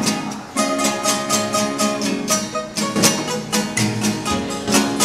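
Two acoustic guitars played together, strumming chords in a steady rhythm.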